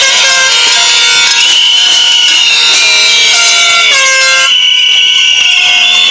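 Many handheld air horns blown together: loud, overlapping held blasts at several different pitches, some wavering, with the blasts starting and stopping at different times.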